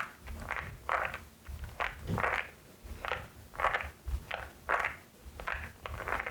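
Typing on a LEOBOG Hi75 mechanical keyboard with Nimbus V3 switches: separate keystrokes at an uneven pace, about one to two a second.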